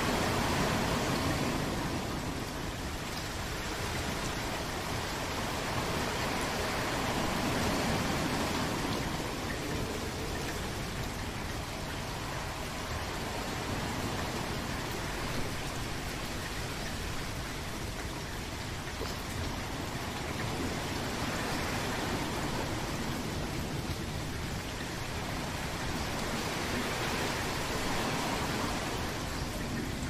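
Steady rain falling, an even hiss of drops that swells and eases slowly every few seconds.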